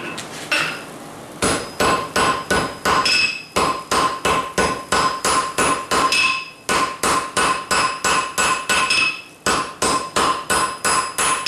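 Hand hammer striking white-hot steel cable on an anvil, forge-welding the strands together. The rapid blows come about three a second in runs broken by short pauses, and each leaves the anvil ringing. They start about a second and a half in.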